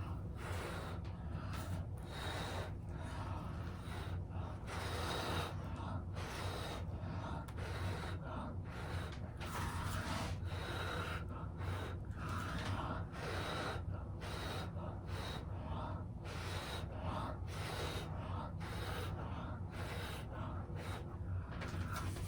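A person blowing hard through pursed lips in repeated puffs, about one a second, with quick breaths between. The puffs push wet acrylic pour paint across a canvas in a Dutch pour. A low steady hum runs underneath.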